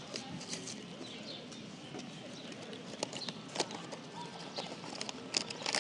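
Cardboard blind box and its packaging being handled and opened: scattered light rustles and clicks, growing into denser crinkling near the end.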